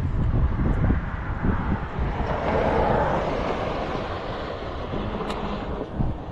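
Strong wind buffeting the microphone in gusts, with a swell of rushing noise about two to three seconds in.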